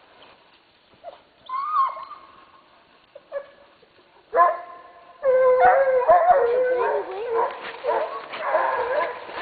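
Scent hounds giving tongue while trailing a hare: a single cry about a second and a half in, then from about four seconds several hounds baying together, loud and continuous.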